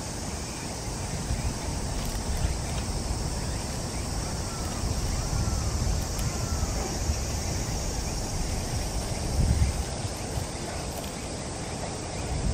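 Outdoor ambience: wind buffeting the microphone with a low rumble, under a steady high hiss. A bird gives three short chirps about a second apart, near the middle.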